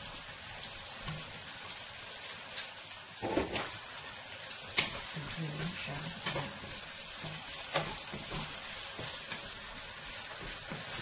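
Pre-boiled green beans sizzling in hot oil in a frying pan as a wooden spatula stirs them, with a steady hiss and scattered knocks and scrapes of the spatula against the pan, the loudest about five seconds in.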